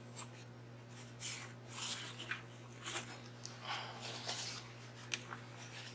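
Faint handling noises as a glass piece is turned and moved on a worktable: several short, soft rubbing and scraping sounds, over a steady low electrical hum.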